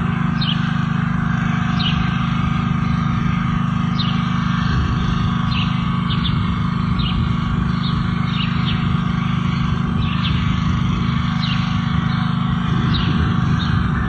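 Birds chirping in short, quick, downward-sliding notes, often in pairs, about once a second, over a steady low hum and background noise.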